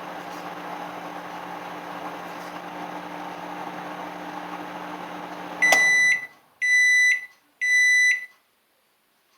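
Microwave oven running with a steady hum that stops nearly six seconds in. Three high beeps follow, each about half a second long and about a second apart: the oven's end-of-cycle signal.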